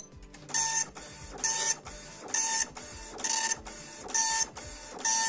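Star NX dot-matrix printer printing a screen image in graphics mode: the print head buzzes across the paper in six short passes, about one a second, with quieter moments between them.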